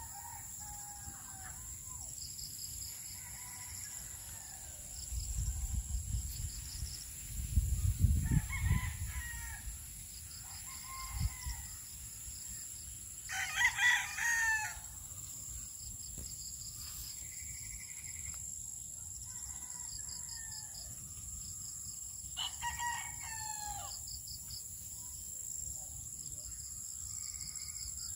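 Roosters crowing, two clear crows about a third and three quarters of the way through, with fainter crowing and clucking scattered throughout. A low rumble rises and falls between about five and nine seconds in.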